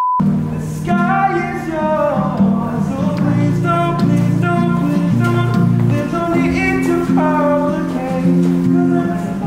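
A short steady test-tone beep at the very start, then continuous music with guitar, held low notes and a stepped melody line.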